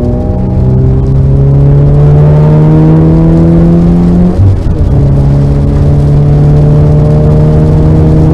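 Car engine heard from on board, pulling hard with its pitch climbing steadily, then a quick upshift just past halfway drops the pitch before it climbs again more slowly.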